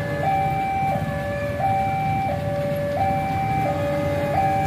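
Railway level-crossing warning alarm sounding a two-tone high-low pattern, switching between the tones about every two-thirds of a second, with road traffic running underneath.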